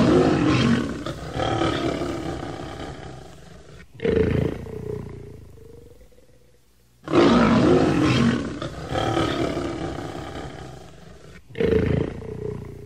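A male lion roaring: a long roar that fades over a few seconds, then a shorter one, and the same pair again about seven seconds in.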